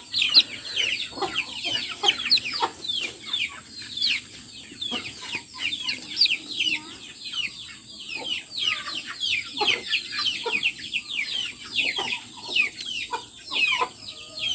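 Young chicks peeping without a break: many short, rapid, downward-falling chirps that overlap one another.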